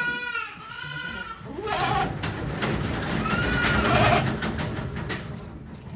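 Goat bleating: a bleat at the start and a shorter one about a second in, then a longer, rough, noisy cry from about one and a half to five seconds in.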